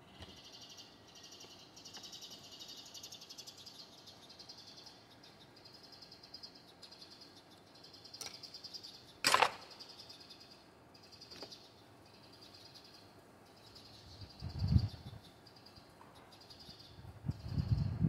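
Faint background chirping of birds, steady throughout. Over it come the handling sounds of an electric plunge router being adjusted while switched off: one sharp click about nine seconds in, and a few low knocks near the end.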